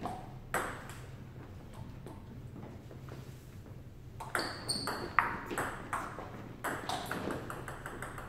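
Table tennis ball clicking in a doubles rally: paddle hits and bounces on the table. There are a couple of single knocks near the start, then a quick run of clicks from about four seconds in, a few each second.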